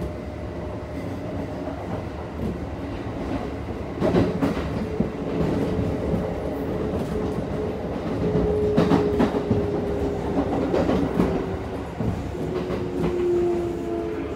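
Kintetsu 1233-series train's VVVF inverter (VC43) and traction motors heard from inside the car while running. There is a steady electric whine with clickety-clack from the wheels on rail joints, getting louder about four seconds in. Near the end the whine tones fall in pitch.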